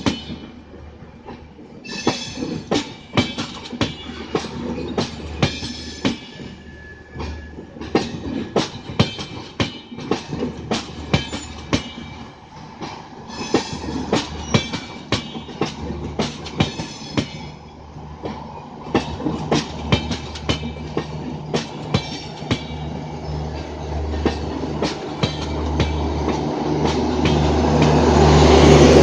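Railway coaches rolling past, wheels clicking over rail joints, with high squeals from the wheels at times. In the last ten seconds a low, steady hum builds and grows much louder.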